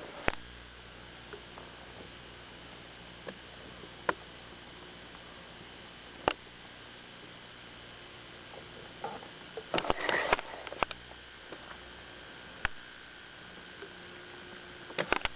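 A steady hum made of several fixed tones, with scattered sharp clicks and a short cluster of rustling bursts about ten seconds in.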